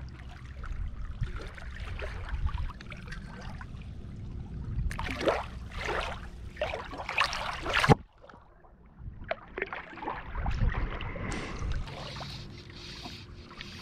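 Water splashing in shallows as a white bass is held and released by hand, in a run of sharp splashes that stops abruptly about eight seconds in. Small waves lapping against the shore and a low rumble fill the rest.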